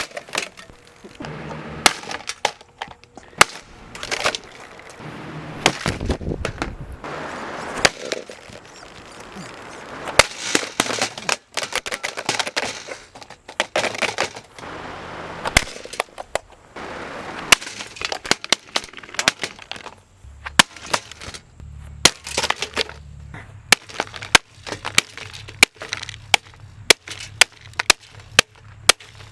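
A Galaxy box fan being smashed apart: repeated hard impacts with plastic cracking and breaking between them. Near the end the blows come evenly, about two a second.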